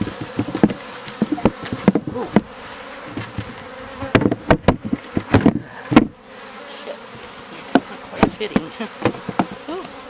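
Honeybees buzzing loudly around an open hive, their pitch bending as they fly past. Over the buzz come repeated knocks and clunks of the wooden hive lid and box being fitted, with a dense cluster about four to six seconds in.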